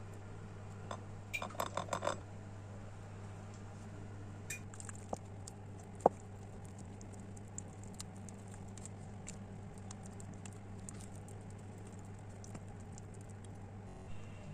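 Silicone spatula stirring a thick chocolate and Nutella mixture in a stainless-steel bowl: soft scraping with scattered light clicks against the bowl, a short run of ringing clinks about two seconds in and one sharp tap about six seconds in, over a steady low hum.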